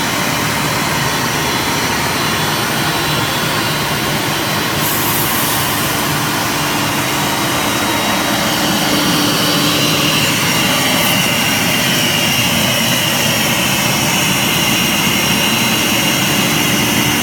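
CNC wood router running: a steady high spindle whine over loud, even machine noise, with a brief hiss about five seconds in.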